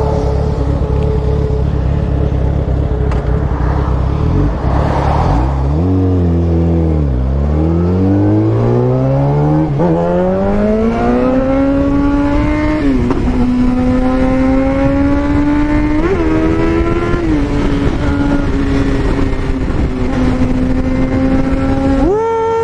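Yamaha FZ1's inline-four engine heard from the saddle at motorway speed, over steady wind noise. About five seconds in the engine note dips, then climbs steadily as the bike accelerates. It drops in pitch once at an upshift and settles into a steady cruise. Near the end the revs jump briefly.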